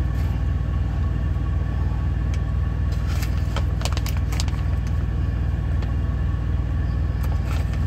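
Steady low hum of an idling truck engine, with a few sharp clicks of metal tongs against a frying pan as shrimp are put in.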